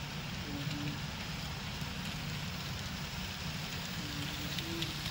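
HO-scale model train of DM&IR SD9 diesels and ore cars running past on the layout track: a steady rolling hiss and rattle of the wheels on the rails.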